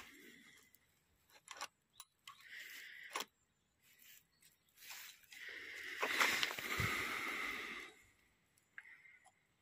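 Saw chain clicking and scraping along the metal guide of an electric chain saw sharpener as it is moved by hand, with sharp clicks as the chain stop catches the links. The longest and loudest scrape, about three seconds, comes past the middle.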